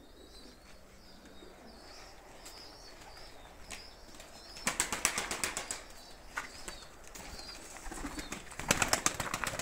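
Domestic pigeons flapping their wings: two bursts of quick wingbeats, one about five seconds in and a louder one near the end.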